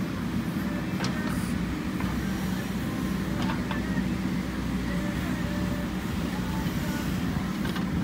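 A JCB 3DX backhoe loader's diesel engine runs steadily under working load as the backhoe arm moves soil. A few faint knocks sound over it.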